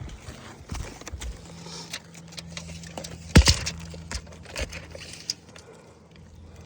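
Scattered clicks, taps and scrapes of hands and tools working on asphalt roof shingles, with one sharp knock about three and a half seconds in, over a steady low hum.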